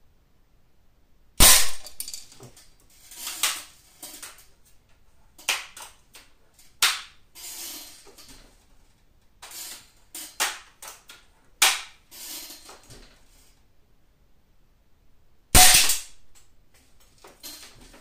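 Daisy 880 multi-pump air rifle fired twice, a sharp crack about a second in and another near the end. Between the shots come smaller clicks and short strokes of the gun being reloaded and pumped.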